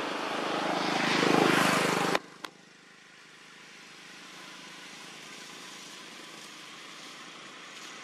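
An engine drone swells to a peak and is cut off abruptly about two seconds in. A single click follows, then a quieter steady background hiss.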